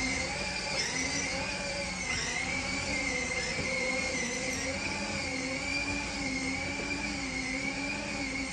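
The electric drive motors of a Kidzone 6V ride-on bumper car whine steadily as it drives and turns, the pitch wavering slightly with the load.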